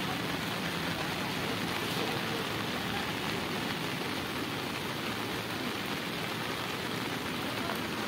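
Rain falling steadily on the river's surface, an even hiss.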